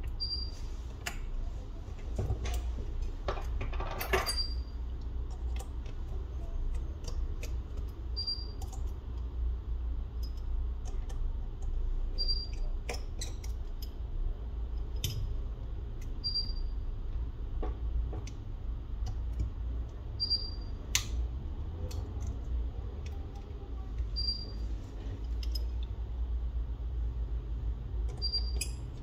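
Small metal tools clicking and tapping against a phone during disassembly, over a steady low hum. A short high beep repeats about every four seconds.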